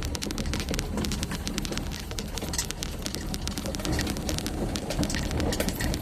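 Rain pattering on the vehicle's windshield and roof, heard as a dense, irregular patter of drop taps over a steady low rumble.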